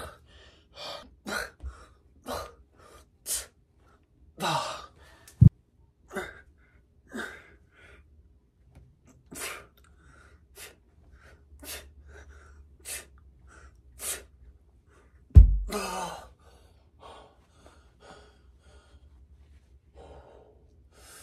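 A man's short, forceful breaths, about one a second, as he works through a set of dumbbell lateral raises, with fewer breaths near the end. Two dull thumps stand out, about five seconds in and again about fifteen seconds in.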